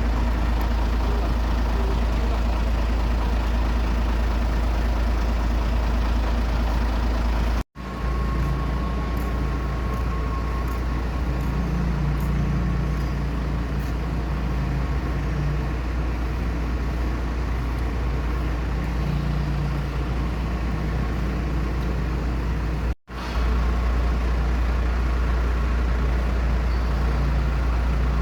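Steady engine and vehicle noise with a heavy low rumble. The sound drops out sharply twice, once about a third of the way in and again near the three-quarter mark.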